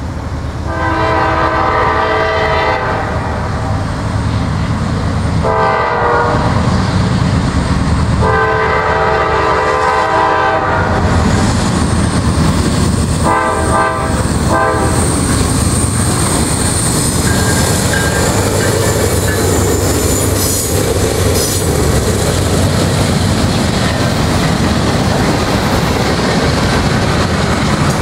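Norfolk Southern freight train with GE Dash 9-40CW (C40-9W) diesel locomotives sounding its air horn in five blasts: long, short, long, then two short ones, while it approaches. The locomotives then pass, with the freight cars rumbling and clicking over the rail joints and a brief high wheel squeal.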